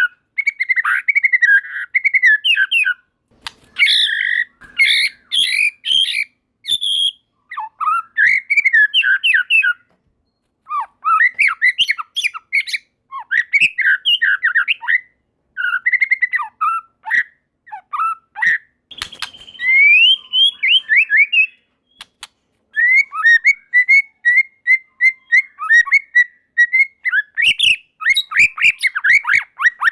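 White-rumped shama singing at full voice: a string of varied whistled and chattering phrases, with a harsh rising rasp about twenty seconds in and a run of quick repeated notes, about three a second, near the end.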